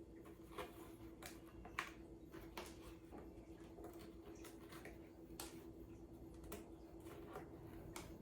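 Faint, irregular light taps and clicks of cardboard panels being handled while a cardboard cat scratcher house is put together, the sharpest about two seconds in. A faint steady hum runs underneath.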